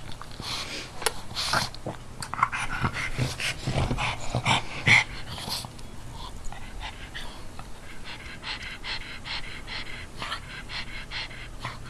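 A pug breathing hard through its short snout: irregular snorty breaths for the first half, then quick, even panting at about three breaths a second.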